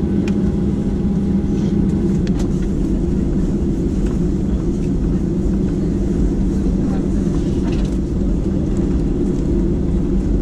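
Steady low rumble inside the cabin of an Airbus A320 taxiing on a wet apron, its engines running at taxi power.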